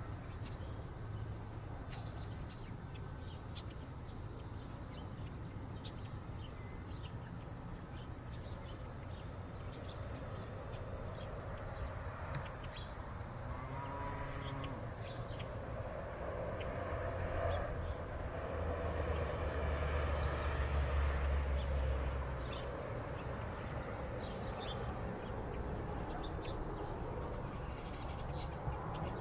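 Outdoor ambience with scattered short bird calls throughout, and a low rumble that swells and fades about two-thirds of the way through.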